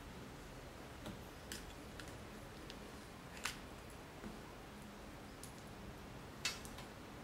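Scattered light clicks and taps of a plastic handheld cable tester and cable connectors being handled, with two sharper clicks about three and a half and six and a half seconds in, over faint room noise.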